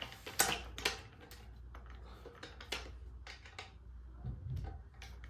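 Irregular clicks and light metal clinks as a bolt is loosened by hand on a metal angle-grinder cut-off stand, with a duller knock a little past four seconds in.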